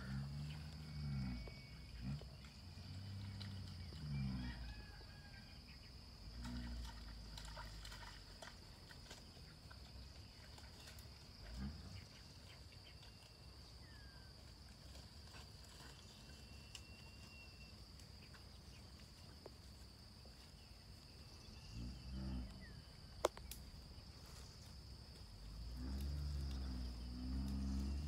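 Steady high insect drone with a few faint bird chirps, and low grunting sounds now and then, loudest near the start and again near the end.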